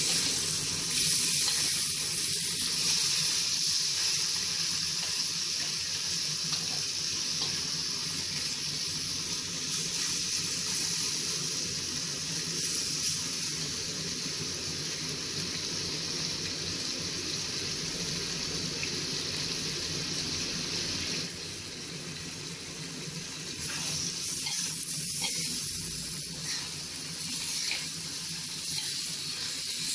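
Frog meat sizzling in hot oil as it is stir-fried until golden brown: a steady, dense hiss. It eases for a couple of seconds about two-thirds through, then picks up again.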